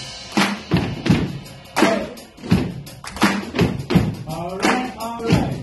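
Rhythmic body percussion: a group's claps, slaps and stomps together with a drum kit, about two to three hits a second in uneven groupings. A voice calls out about four seconds in.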